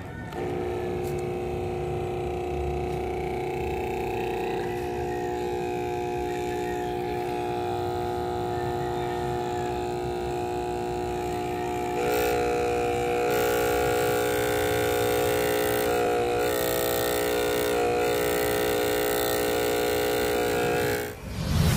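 Aquarium air pump (AP-226) running with a loud, steady electric buzz, getting louder about halfway through. The noise is the sign of a faulty pump that has become very noisy and no longer produces bubbles.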